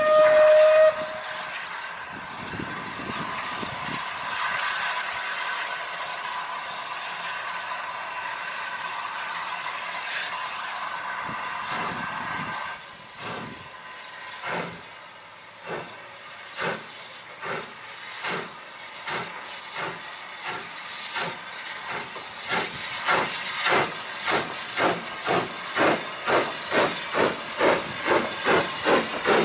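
Steam locomotive's whistle sounding once, briefly and loudly, then a steady hiss of steam. About halfway through the locomotive starts away: its exhaust beats begin at about one a second and quicken toward two a second, growing louder.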